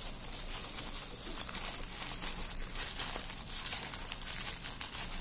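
Thin plastic bags crinkling and rustling as they are handled, an irregular run of small crackles.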